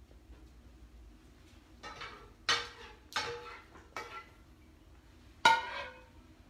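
Kitchen utensils clinking and knocking against dishes: about five sharp hits, each with a short ring, the loudest near the end.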